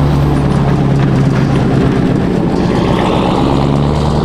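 Pickup truck's engine idling close by, a loud, steady low rumble that holds one even pitch.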